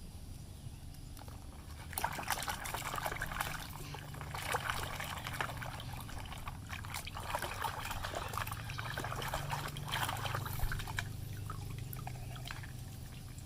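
Water trickling and splashing over a muddy toy bulldozer as it is washed, with small clicks and knocks of the plastic toy, starting about two seconds in and easing off near the end.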